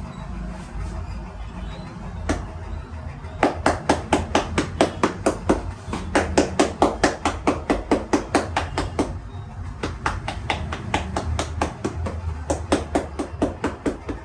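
Hands striking rapidly in a percussive chopping or tapping massage, about five strikes a second, in two long runs with a short pause between them.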